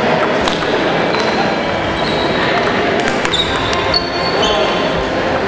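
Table tennis balls clicking off paddles and tables in quick, irregular strokes, over a steady din of background voices, with a few short high squeaks.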